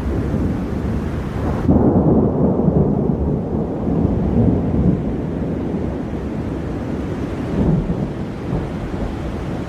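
Low, continuous storm rumble. About two seconds in, the higher hiss drops away abruptly and the deep rumble grows louder, then it carries on unevenly.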